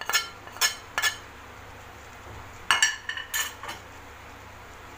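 Small metal spoon clinking and scraping against a plate as spice powder is tipped into the pot: three sharp clinks in the first second, then another quick run of clinks about three seconds in.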